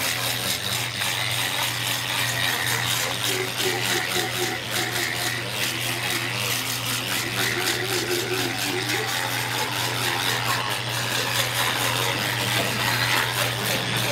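Handheld fish scaler rasping and rattling as it strips the scales off a whole salmon, over a steady low hum.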